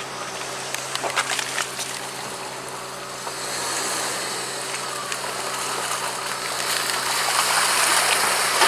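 Car engine running steadily as the car is manoeuvred, backing up and driving around, on a rough dirt track, with a few knocks in the first couple of seconds and tyre noise on the rough surface swelling about a third of the way in and again near the end.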